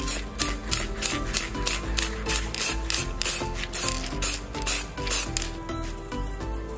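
Aerosol spray-paint can hissing in quick short bursts, about four a second, as black paint goes onto a small plastic model part; the bursts stop a little after five seconds in. Background music plays underneath.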